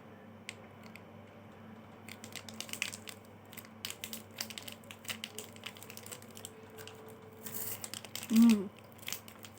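Close-up eating of a crunchy chocolate wafer bar: scattered crisp crunching clicks, with a short voiced hum about eight seconds in.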